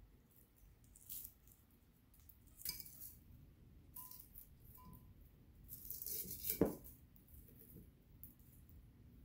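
Dried herb leaves crackling and rustling as they are stripped from brittle stems and dropped into a ceramic pitcher, in short scattered bursts. One sharper click comes about two-thirds of the way in.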